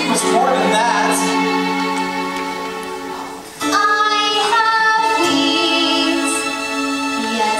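Live musical-theatre singing with accompaniment: voices holding long sustained notes, breaking off briefly about halfway through before a new held chord begins.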